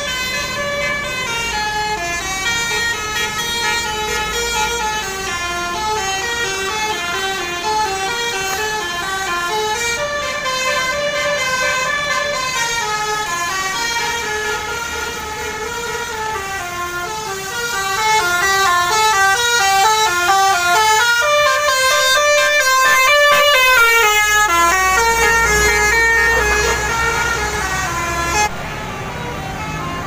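A telolet bus horn, the multi-tone musical horn of an Indonesian tour bus, plays a running melody of quick stepping notes without pause. It grows louder a little past halfway and cuts off suddenly near the end.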